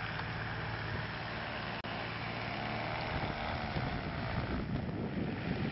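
Engine of a radio-controlled model Beechcraft Bonanza running steadily, its pitch falling slowly, with wind buffeting the microphone more in the second half.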